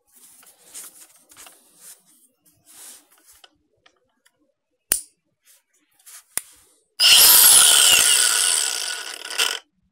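Milwaukee M18 Fuel cordless angle grinder run with its disc spinning free in the air: after faint handling rustles and two sharp clicks, the motor starts about seven seconds in with a loud high whine, holds briefly, then winds down over about two seconds as it coasts to a stop.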